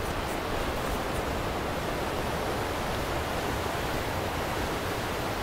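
Steady rush of whitewater from the Santa Cruz River running over rocks.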